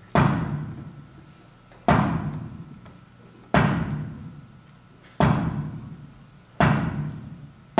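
Slow, heavy drum strikes, one about every second and a half to two seconds, each ringing out before the next.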